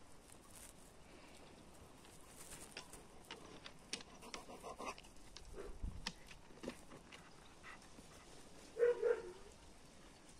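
Faint rustling and clicking of a hand and woolly sleeve rubbing against a dog's fur, then two short dog vocalizations close together about nine seconds in.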